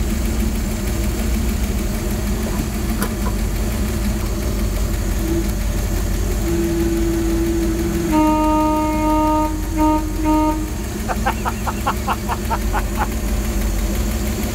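1965 Dodge A-100's V8 idling steadily while its horn sounds, one long blast about eight seconds in followed by two short toots. A quick run of evenly spaced clicks follows the horn.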